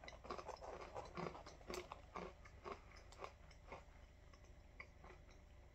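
A person chewing a mouthful of dry banana-and-caramel oat granola: faint crunching, thinning out after about four seconds.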